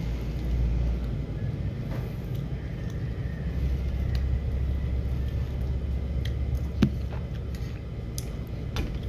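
Steady low rumble, with a few faint clicks and one sharper tap about seven seconds in.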